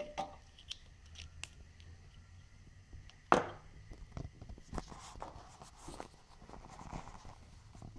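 Handling noises around a motorcycle: a few light clicks and a single loud knock about three seconds in, then shuffling movement with a few dull thuds.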